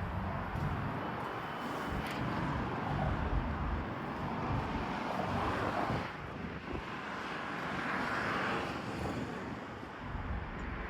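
Strong wind gusting over the microphone, a rough low rumble that swells and eases, over steady road-traffic noise.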